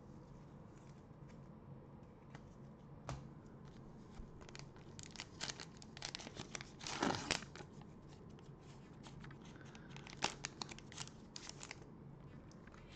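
Plastic trading-card pack wrapper torn open and crinkled by gloved hands. Scattered crackles build to the loudest rip about seven seconds in, with another run of crinkling near the end as the cards come out.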